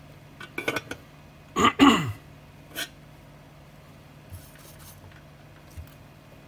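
A person clearing their throat: two quick, loud bursts with a falling pitch about a second and a half in. A few light clicks and a faint steady low hum sit around them.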